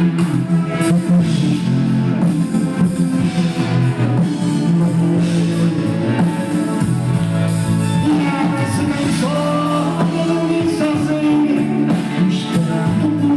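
Live band music with singing, loud and continuous.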